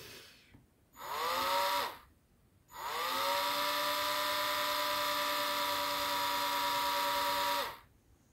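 Dremel rotary tool spinning a model part held in its chuck. It runs briefly and stops, then starts again, spins up with a rising whine, runs steadily for about five seconds and switches off.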